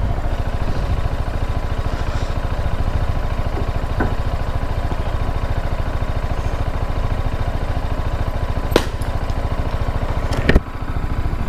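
New BMW motorcycle's engine idling steadily under the rider, with a coconut smashed on the road: a sharp crack about nine seconds in and a louder crack about a second and a half later.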